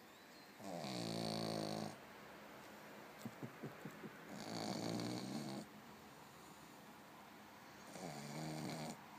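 Pug snoring while awake: three loud, rattling snores about a second long, roughly every three and a half seconds. A few short snuffling clicks come just before the second snore.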